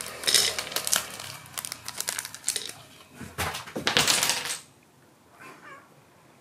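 A cat crunching dry kibble and nosing it around in a wooden dish: a dense run of crisp crunches and small clicks that stops about four and a half seconds in.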